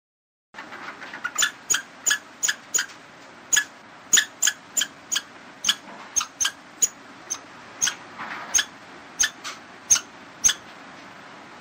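Squirrel giving a string of short, high-pitched chirping calls, about two a second and unevenly spaced, over a faint steady outdoor hiss.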